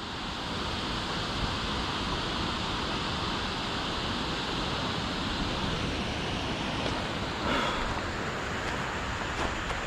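Steady, even rushing noise, with a faint short sound about seven and a half seconds in.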